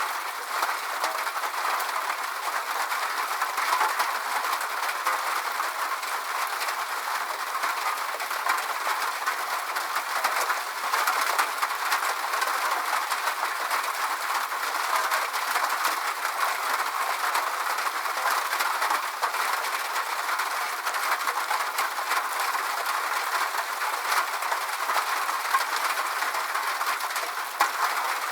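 Steady rain falling: an even hiss thick with tiny drop ticks, with no deep rumble underneath.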